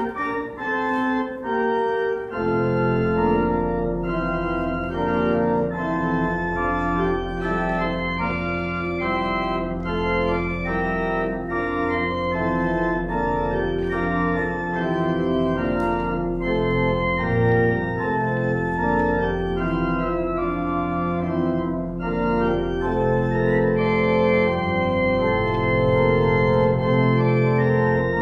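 Pipe organ playing sustained chords, with a deep pedal bass coming in about two seconds in.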